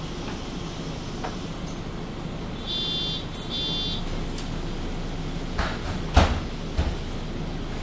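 Diesel engine of a MAN Lion's City G articulated city bus idling at a stop. Two short high beeps of the door-closing warning sound about three seconds in, then the doors shut with three sharp knocks, the loudest about six seconds in.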